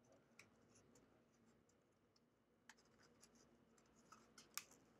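Near silence, with faint scattered ticks and light scratches of paper card being handled as its tabs are folded and tucked in. The sharpest tick comes near the end.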